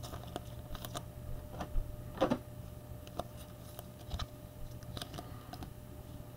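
Foil wrapper of a trading-card pack being handled and torn open, then the cards inside being handled: scattered soft crinkles and clicks, loudest about two seconds in, over a low steady hum.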